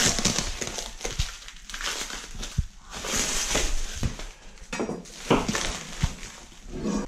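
Parcel packaging being cut and torn open with a large knife: irregular crinkling and crunching of the wrapping, with a few sharp clicks.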